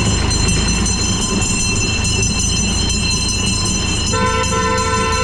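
1960 Fordson Dexta tractor engine running steadily as the tractor is driven. Steady high-pitched tones sound over it, and a lower tone joins about four seconds in.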